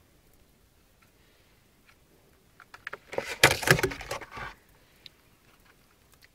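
Hands handling a small plastic FM transmitter: faint clicks, then a loud burst of rustling and clattering about three seconds in that lasts a second and a half.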